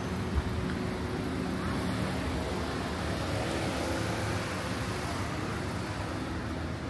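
Steady street traffic noise, with a motor vehicle's engine running close by.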